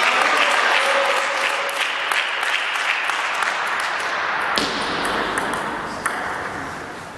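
Table tennis ball clicks, the plastic ball bouncing and striking paddles and table, over a rushing noise that starts at once and swells again about four and a half seconds in.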